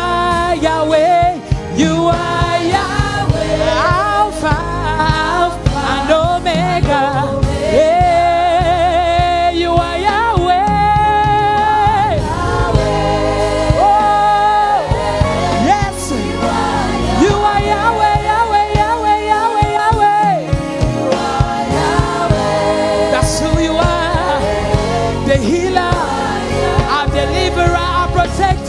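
Gospel choir singing in live worship, with long held notes wavering in vibrato over instrumental accompaniment.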